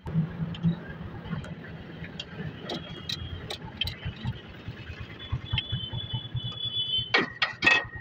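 Socket ratchet clicking as bolts are turned on a tractor's brake assembly, with scattered metal knocks and scrapes. Two louder scraping strokes come near the end.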